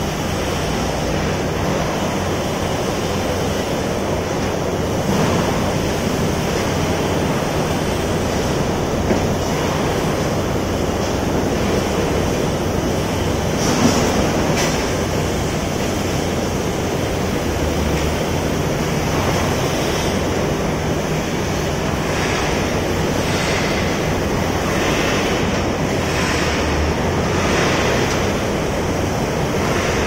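Steady, loud rushing roar of construction-site equipment with a low hum underneath, and a couple of faint knocks about nine and fourteen seconds in.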